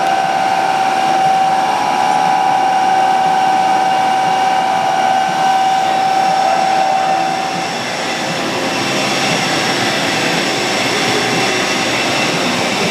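Daewoo Puma 500 CNC turning center running, giving a steady mechanical whine that changes about eight seconds in as the strongest tone fades. It sounds nice and quiet, the sign of a machine in good running order.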